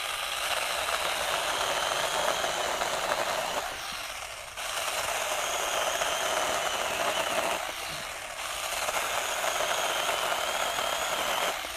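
Small battery-powered pruning chainsaw (BeiHong 6-inch, 21V) running under load, its chain cutting through a 2-inch branch with a steady high motor whine. The sound dips briefly twice, about four and eight seconds in, and stops as the cut ends.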